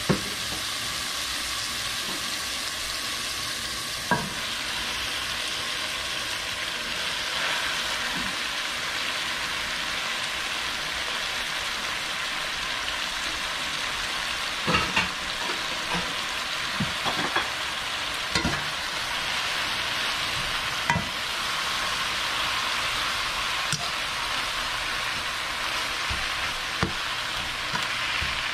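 Cherry tomatoes frying in oil in a nonstick pan, with a steady sizzle. Scattered short knocks and clinks of utensils against the pan come through it, a cluster of them about halfway through as arugula goes in and is tossed with metal tongs.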